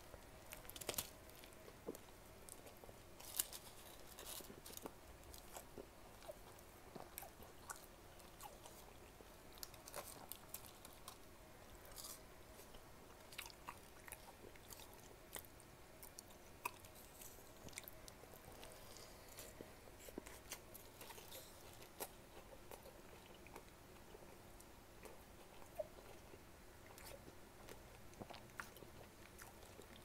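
Close-miked chewing and biting of a Double Quarter Pounder with Cheese: faint, wet mouth sounds with many small crunches and clicks, the sharpest about one and three and a half seconds in.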